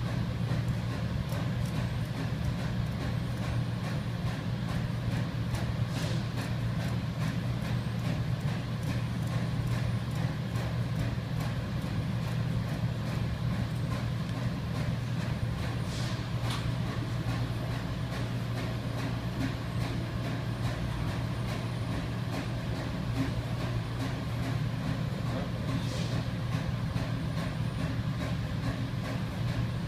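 Industrial furnace equipment running with a steady low hum, plus faint ticks about every ten seconds.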